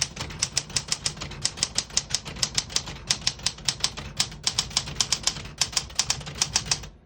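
1975 Smith-Corona Galaxie Twelve manual portable typewriter typing a sentence: a quick, even run of key strikes, about six a second, with a couple of brief pauses between words.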